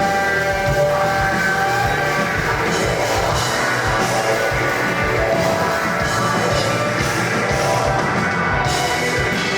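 Rock band playing live, with guitar over a steadily pounding drum kit.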